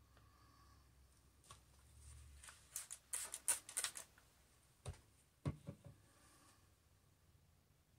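Faint handling clicks and taps from craft tools on a work table: a quick run of small clicks about three seconds in, then two soft knocks around five seconds.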